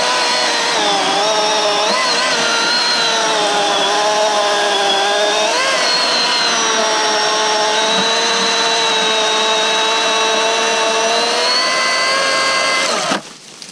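Milwaukee M18 Fuel cordless brushless chainsaw cutting through a log: a steady high motor whine with a spray of chain-and-wood noise, its pitch dipping and recovering a few times as the chain bites. The saw stops abruptly near the end.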